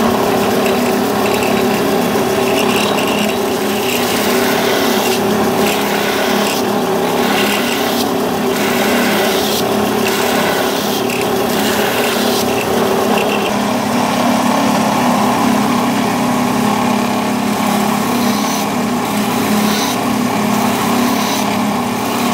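Belt sander running loudly and steadily, a wooden hat jack end block held against the moving belt and sanded down to a marked line. The hiss of the belt on the wood swells and fades several times as the block is worked.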